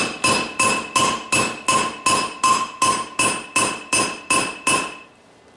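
Steady hand-hammer blows on steel, about three a second, each with a bright metallic ring from the anvil, as a drift is driven into the hot eye of a forged chain repair link to open it. The blows stop about five seconds in.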